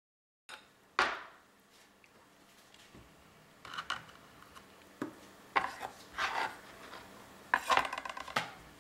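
Scattered knocks and light clatters of pineapple chunks and a terracotta bowl being handled on a plastic cutting board, with one sharp knock about a second in.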